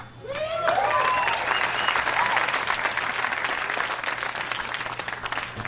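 Concert audience applauding and cheering, with whoops and whistles over the clapping in the first couple of seconds; the applause thins out toward the end.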